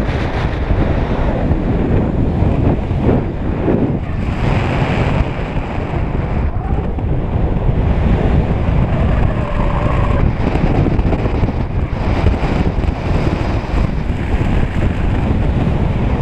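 Loud, steady rushing and buffeting of airflow over the camera microphone on a paraglider in flight.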